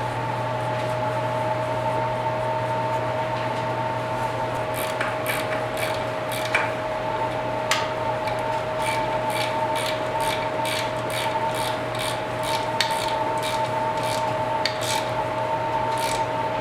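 Repeated rubbing or scraping strokes from hand work on motorcycle parts, about two a second, starting a few seconds in, over a steady electrical hum.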